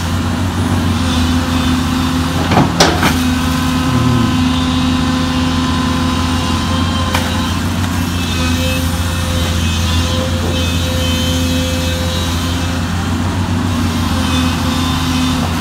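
Excavator diesel engine running steadily under digging load, with a constant low hum, as the long-reach arm and bucket work through mud. A couple of sharp knocks come about three seconds in.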